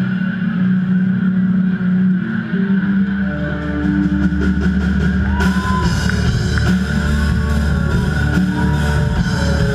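Live rock band playing through a PA: sustained electric guitar tones, with heavy bass coming in about three seconds in and drums and cymbals joining a little past halfway.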